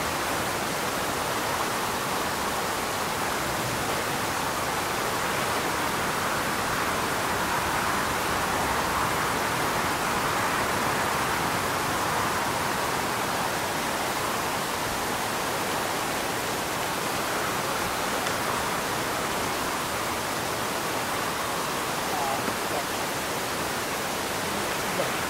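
Steady, even hiss of noise with no clear engine or voice in it, and a couple of faint short ticks near the end.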